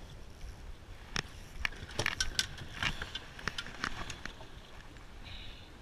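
A rapid, irregular run of sharp clicks and knocks of hard objects aboard a small fishing boat, over a steady low wind and water noise.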